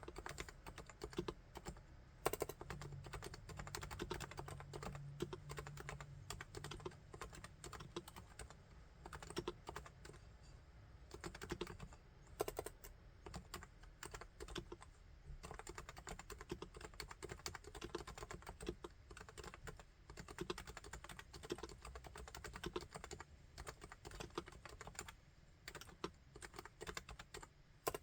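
Continuous typing on a Topre Realforce R3 keyboard with electro-capacitive (Topre) switches: a rapid, dense run of keystrokes with a few louder strokes, about two seconds in and about twelve and a half seconds in.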